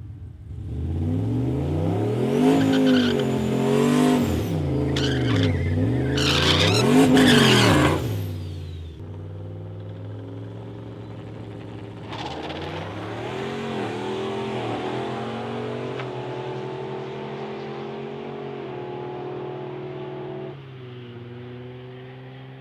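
V8 engine of a lowered Chevrolet Silverado pickup revving hard up and down several times during a burnout, with tire squeal, for about the first eight seconds. It then idles, and from about twelve seconds in it comes back up and pulls away down the drag strip, dropping in level near the end.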